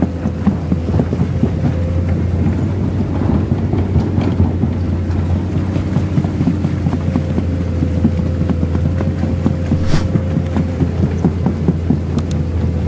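Komatsu PC210 excavator's diesel engine running steadily with a low throb while the machine travels through shallow muddy floodwater, a rapid rattling and a faint steady whine over it.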